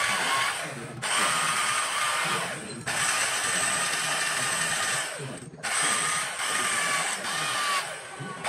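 Electric power carving tool cutting into rosewood in repeated bursts of one to two seconds, with short pauses between them; a steady high whine rides over the grinding.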